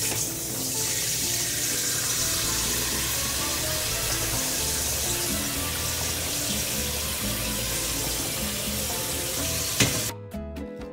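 Water poured steadily into a pot of broth, a constant splashing hiss that stops about ten seconds in.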